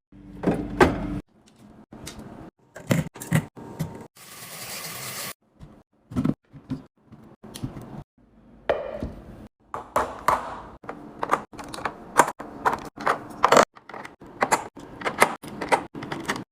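Drinks and groceries being set into a fridge: a run of irregular sharp knocks and clinks against shelves, with a rustle of about a second roughly four seconds in.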